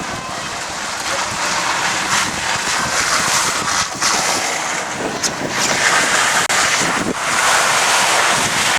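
Wind rushing over the microphone with the noise of a moving truck, heard from its open bed as it drives along a rough dirt track.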